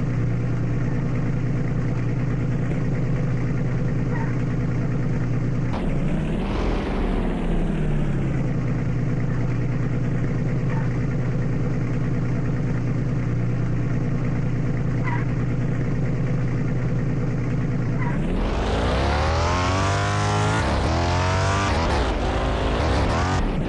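A motor running at a steady pitch, dipping at first and swelling briefly about six seconds in. From about eighteen seconds it sweeps up and down repeatedly, as if revving and changing speed.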